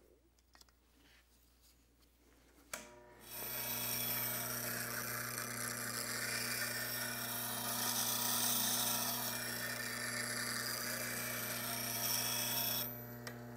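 A low-speed bench grinder starts with a click about three seconds in and runs with a steady motor hum. A spindle gouge held in a Vari-Grind jig is then rolled across the CBN wheel, a steady grinding hiss as the tip and wings are sharpened, which stops near the end while the motor keeps humming.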